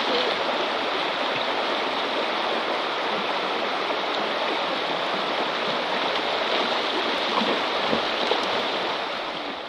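Shallow river water rushing over stones, a steady wash of flowing-water noise. A few small splashes near the end as the dogs move in the water.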